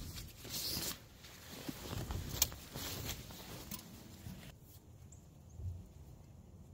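Quilted nylon poncho liner rustling and swishing as it is shaken out and spread over a wool blanket, with a sharp click about two and a half seconds in. The rustling turns quieter and duller in the second half as the liner is tucked in.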